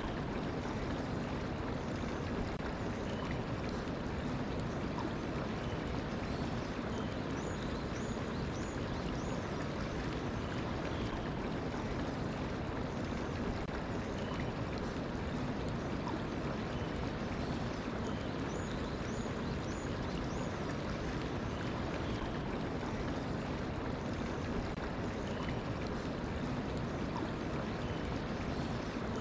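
Mountain stream flowing steadily. A bird calls twice with a short series of high chirps, once about a quarter of the way in and again about two-thirds through.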